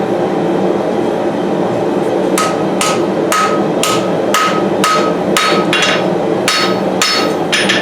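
A forging hammer striking a hot knife blade, about eleven blows at roughly two a second, each with a short metallic ring, starting after a couple of seconds. They ring out over the steady roar of a lit gas forge.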